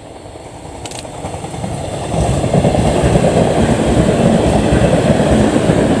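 JR East E721 series electric train passing close by. Its running noise on the rails builds over about two seconds, then stays loud with a steady low hum as the train goes past.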